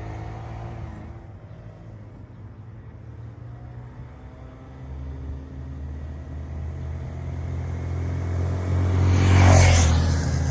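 Honda Monkey 125's single-cylinder engine running on a ride. It grows louder over the second half and peaks in a rush of noise about nine and a half seconds in, then eases off.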